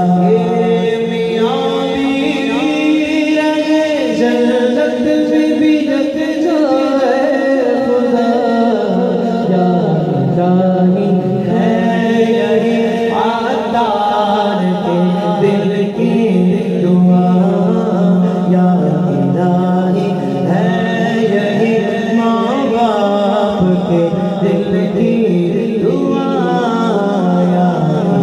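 Men singing a devotional chant into handheld microphones, the voices gliding through long melodic phrases without pause.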